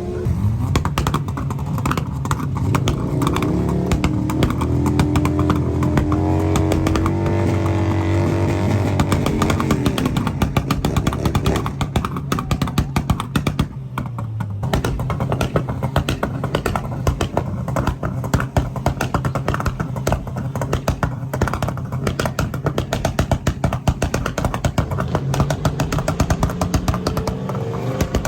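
Performance car engine revving hard, its pitch climbing over several seconds. It then breaks into a long run of rapid exhaust pops and crackles, typical of a two-step launch limiter.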